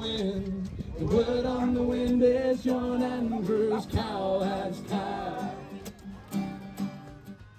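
Sea shanty sung by several men together in harmony, with acoustic guitar accompaniment, on long held notes; the singing trails off near the end.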